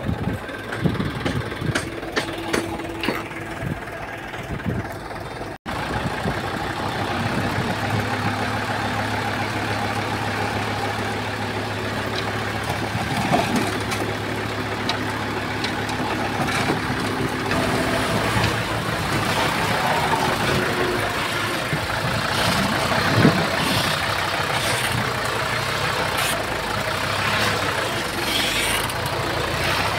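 Diesel engine of heavy earthmoving machinery running steadily, with scattered metallic clanks and knocks. The sound drops out for an instant about five seconds in, then carries on.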